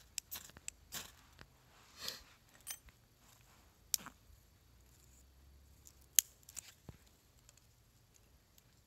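A few short scraping strokes from a small metal tool, then dry twigs snapping as they are broken by hand, with the sharpest snap about six seconds in.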